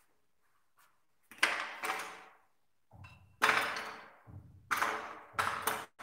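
Wooden and metal clay-sculpting tools clattering on a wooden worktable as they are set down and picked up. There are about six sharp clacks, starting about a second and a half in.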